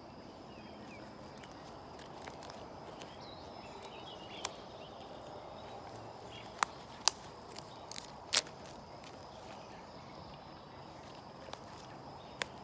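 A few sharp snaps and clicks from cut lily stems being handled and stripped of their leaves, scattered over a steady outdoor background, with faint bird chirps in the first few seconds.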